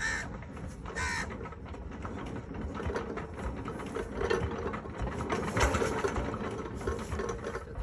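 Stationary flywheel engine of a farm irrigation pump running with a rapid, even chugging beat. A crow caws once about a second in.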